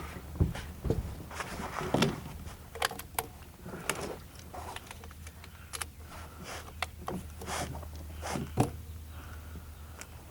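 Irregular sharp clicks, knocks and light rattles, as of a rifle and handheld camera being handled, over a steady low hum; the loudest knock comes near the end.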